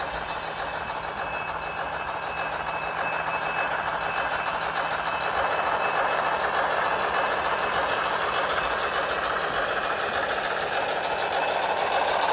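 Model freight train running on layout track: the 2-8-2 steam locomotive and its cars make a steady rolling, motor-and-wheel noise with a thin steady whine. The noise grows a little louder partway through, and a faint rising whine comes in near the end.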